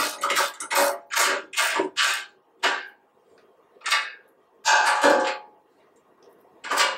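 Ratchet wrench with a 13 mm socket tightening hex bolts on a steel trolley frame: a quick run of short ratcheting strokes, about two or three a second, then a few single strokes with pauses between them.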